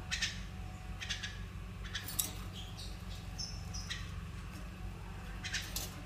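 Caged lovebirds giving several short chirps spaced out, with one brief higher whistled note about halfway through, over a steady low hum.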